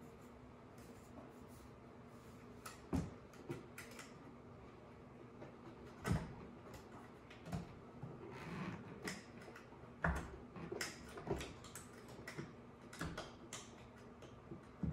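Scattered knocks, clicks and light scrapes of a large framed calendar being shifted against a drywall wall while it is hooked onto two screws, with three louder knocks about three, six and ten seconds in.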